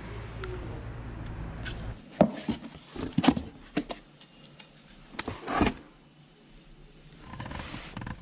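A cardboard box being opened by hand: its flaps pulled back with a series of sharp knocks and short rustles, loudest a couple of seconds in. A low hum runs under the first two seconds.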